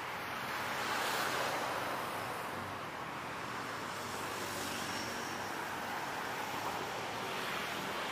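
Road traffic noise: a steady hiss of cars on a busy city road, swelling as a vehicle passes about a second in.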